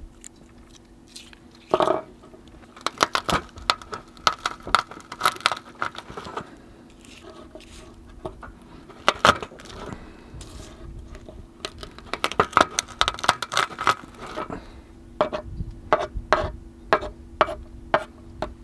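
Kitchen knife chopping garlic on a wooden cutting board: quick runs of sharp taps of the blade on the board, then slower single strokes near the end, over a faint steady hum.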